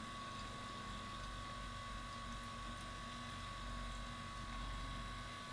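Percussion massage gun running with a steady motor buzz.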